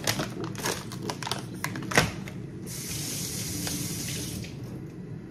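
Several knocks and clatters, a sharp one about two seconds in, then water running from a sink faucet for about two seconds.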